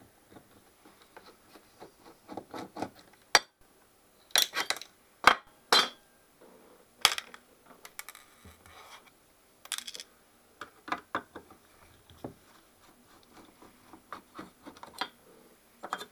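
Hand tool and nuts clicking and knocking against the metal frame of a Solartron 1250 analyser as its front-panel nuts are undone, in irregular bursts with a few louder knocks between about four and ten seconds in.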